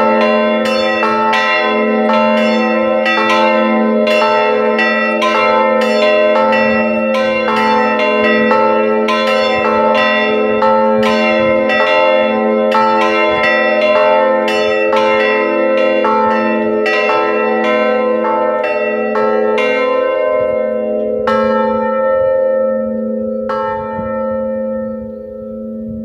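Three church bells swinging on their yokes and ringing together in full peal, struck in a dense, irregular jumble. About twenty seconds in the strikes thin out to two last clangs as the bells slow toward rest, and their hum rings on and fades.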